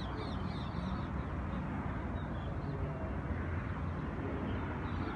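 Many small birds chirping in quick short notes over a steady low rumble of city traffic. The chirps are thickest near the start and again near the end.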